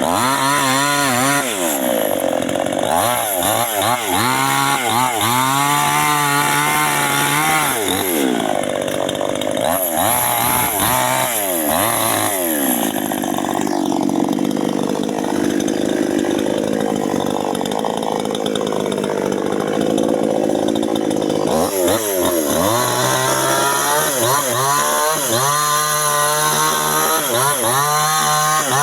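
Two-stroke chainsaw revving up and down repeatedly, then held under steady load for several seconds in the middle as it cuts into a coconut palm trunk, then revving up and down again.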